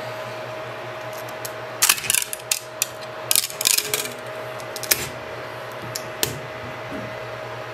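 Hard plastic 3D-printed parts clicking and clattering as they are handled and set down on the printer's build plate, in a quick cluster of knocks about two seconds in and a couple of single clicks later, over a steady hum.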